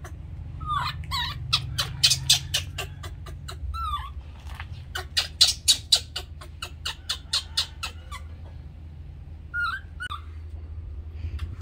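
Animal calls: two quick runs of sharp clicking chirps, about five a second, with a few short squeaky calls before, between and after them, over a low steady hum.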